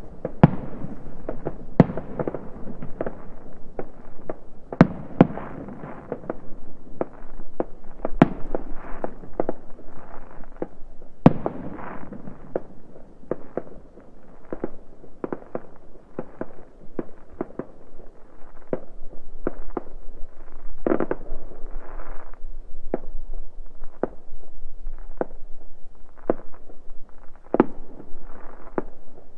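Fireworks going off all around in a dense, unbroken string of bangs and pops, several a second, each trailing off in an echo. A few sharper, louder reports stand out from the rest.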